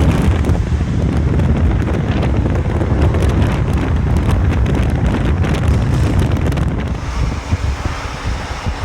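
Lamborghini Huracán's V10 exhaust running loud alongside, with a rapid scatter of sharp crackles and pops over a deep rumble, thinning out and quieter near the end. Wind buffets the microphone throughout.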